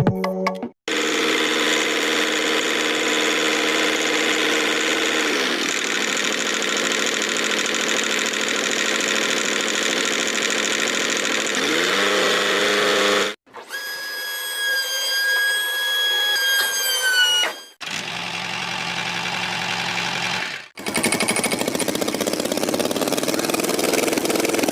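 A small motor running steadily with a whine, heard in several short takes that start and stop abruptly; its pitch shifts a few times, and one take ends with the tone sliding down.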